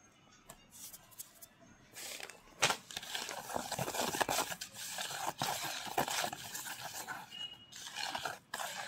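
A hand squeezing and kneading wet naphthalene powder soaked in kerosene in a plastic bucket: gritty crunching and squishing, starting about two seconds in and going on until near the end.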